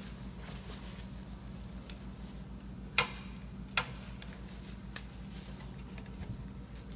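A few sharp clicks and taps from gloved hands handling small packaging at a new motorcycle battery, the loudest about three seconds in, over a steady low hum.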